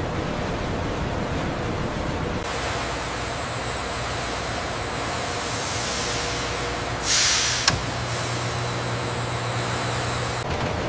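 Steady industrial machinery noise, with a short, loud hiss about seven seconds in that ends in a sharp click.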